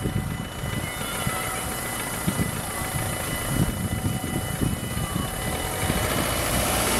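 Gusty wind rumble on the microphone over street traffic noise, with a faint steady high tone, growing a little louder near the end as a car comes closer.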